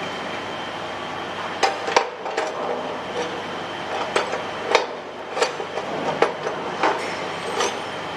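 Sharp metallic knocks and clanks, about ten at irregular intervals, over a steady mechanical hum with a faint high whine.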